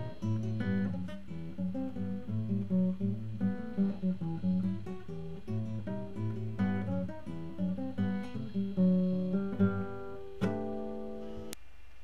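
Background music on acoustic guitar: a steady run of picked notes, ending with one chord struck about ten and a half seconds in and left to ring out.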